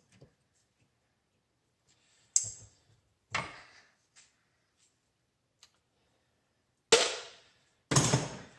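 Four sharp knocks, a second or more apart, each dying away quickly: a tool striking and working apart plastic electrical plugs to get at the copper and brass inside.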